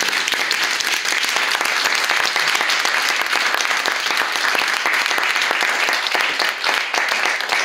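Small audience applauding: many hands clapping steadily.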